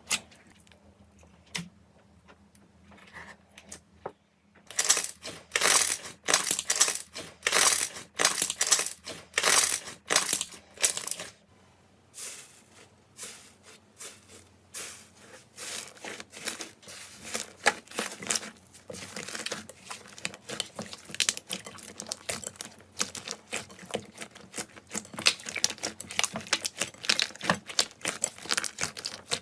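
Slime being pressed and worked by hand, making crackling, crunching noises. A few faint clicks at first, then from about five seconds in loud crackling squeezes about twice a second, which after about twelve seconds give way to quieter, denser crackling.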